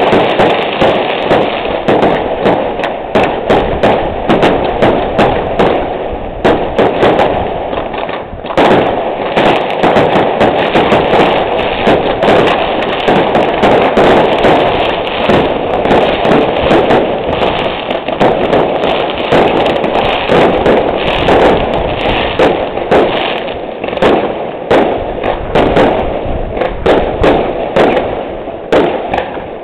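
Fireworks display: a rapid, unbroken barrage of loud bangs and crackling bursts, several every second.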